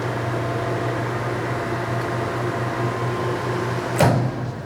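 TOS SN50 lathe running under power carriage feed, a steady machine hum with a strong low tone. A sharp clunk about four seconds in, after which the running sound drops away.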